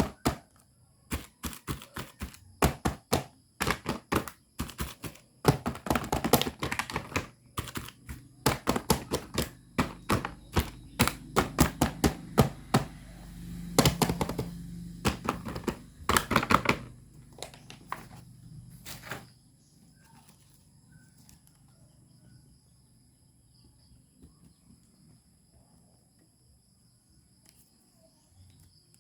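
Hands unboxing toys: a fast, uneven run of sharp clicks, taps and knocks, stopping about two-thirds of the way through, after which only a faint hiss remains.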